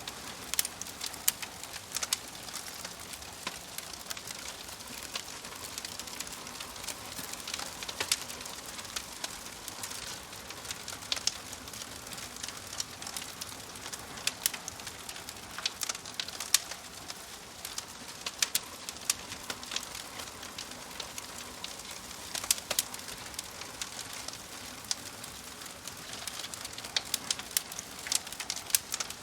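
Wood fire crackling: irregular sharp pops and snaps over a steady low hiss.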